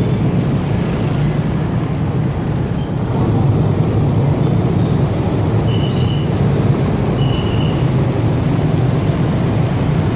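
Busy street traffic, mostly motorcycles with a car among them, driving past in a steady low rumble. A few short high-pitched tones sound over it.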